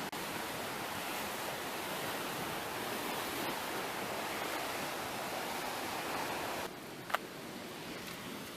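Ocean surf washing in a steady hiss, which drops suddenly near the end, followed by a single sharp click.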